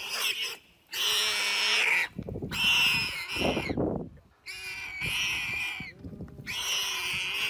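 Warthog squealing in distress while seized by a leopard: a string of about five long, high squeals, each about a second, with short gaps between.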